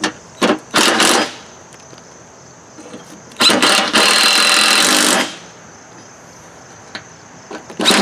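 Bauer 20V cordless impact driver hammering self-tapping bolts through a mower deck into a new blade spindle: two short bursts about a second in, then one longer run of about two seconds near the middle.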